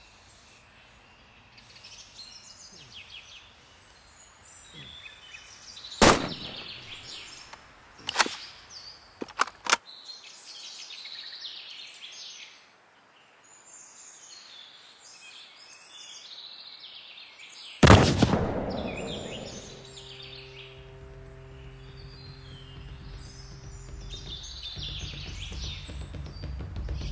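Songbirds chirping in bare woods, with a few sharp clicks in the first third. About eighteen seconds in, one loud rifle shot echoes and fades over a couple of seconds. It gives way to a low steady hum of several tones, and then a low rumble that swells near the end.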